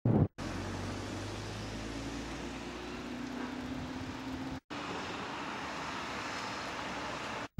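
Street traffic noise: a steady hiss of road traffic with the low hum of a motor vehicle engine over the first few seconds, the sound cutting out briefly twice.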